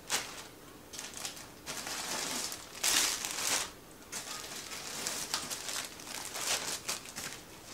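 Clear plastic packaging bags crinkling and rustling as they are handled, in irregular bursts, the loudest about three seconds in.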